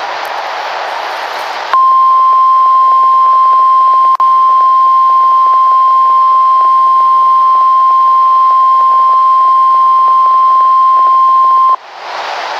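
NOAA Weather Radio 1050 Hz warning alarm tone: one steady, loud, high tone held about ten seconds, with a momentary dropout about four seconds in. Radio static hiss comes just before and just after it.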